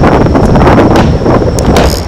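Fireworks booming: a dense low rumble of shell bursts with sharp reports about a second in and again near the end, over wind rumble on the microphone.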